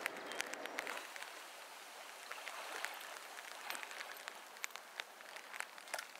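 Quiet trout-stream water running over a shallow riffle, an even hiss dotted with many small splashing ticks.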